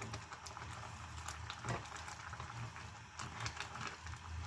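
Chicken curry simmering in an uncovered pan, its still-watery sauce bubbling with many small pops over a low steady hum. A single louder knock comes about a second and a half in.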